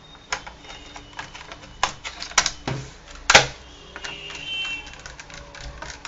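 Scattered clicks and knocks of hands and a small screwdriver on the plastic underside of a Dell Inspiron 15R laptop as its bottom cover is pressed into place and screwed down, the loudest knock a little past halfway.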